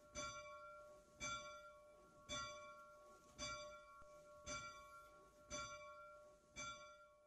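A single bell tolled about once a second, seven strikes at the same pitch, each ringing on into the next, faint and fading away near the end.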